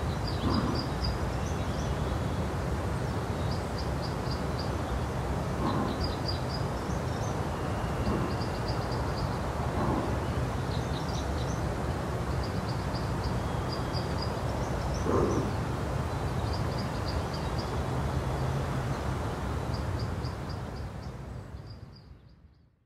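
Outdoor zoo ambience: a steady low rumble with small birds chirping in short, quick trills every few seconds, fading out near the end.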